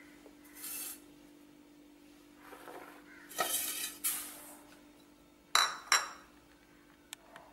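Semolina poured from a bowl into a stainless steel mixing bowl: grainy hissing in a few short pours. A little after halfway come two quick, ringing metallic clinks on the steel bowl.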